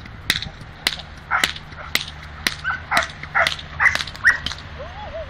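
Dog barking in about ten sharp barks, roughly two a second, at a bite-sleeve decoy during protection training.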